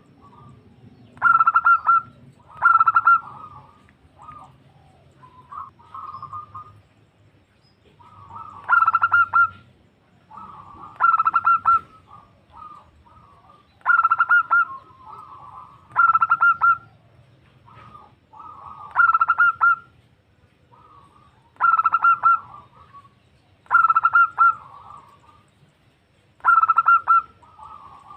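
Female zebra dove (perkutut) calling to a male: a series of short, rapidly stuttering coos, about one every two to three seconds, with softer calls in between.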